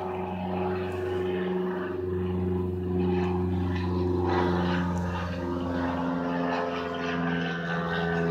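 A steady low engine drone, its pitch shifting slightly now and then.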